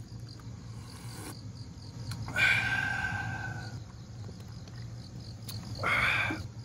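Insects chirping in a steady, even rhythm under a low hum. Two loud breathy sounds cut across it: a longer one about two seconds in that fades over a second or so, and a shorter one near the end.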